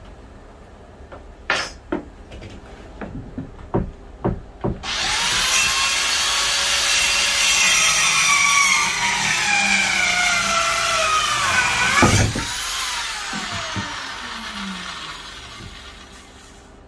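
A handheld circular saw starts up about five seconds in and cuts through a board, its pitch sagging as the blade works under load. A loud knock comes about twelve seconds in, then the blade winds down with a falling whine. Before the cut there are a few scattered knocks.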